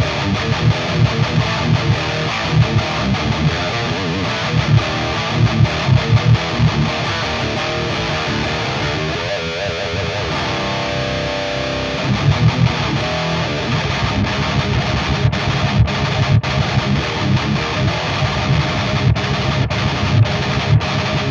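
Heavily distorted electric guitar through a Peavey Invective amplifier head on its lead channel with the gain turned down a little, playing fast palm-muted chugging riffs. A held chord rings out for a few seconds about nine seconds in, then the chugging returns with sharp, tight stops near the end.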